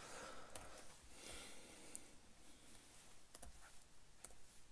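A few faint computer keyboard clicks, some in quick pairs, spread over a few seconds against quiet room tone.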